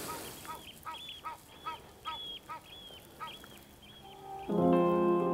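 A waterbird calling over and over, about two or three short calls a second, stopping about three and a half seconds in. Louder guitar music comes in near the end.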